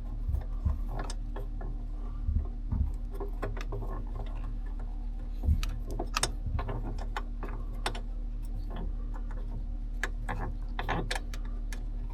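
Irregular clicks and clacks of hand tools and small mounting hardware being handled as a switch-panel mount is fitted and tightened, with no steady ratchet rhythm. A steady low hum runs underneath.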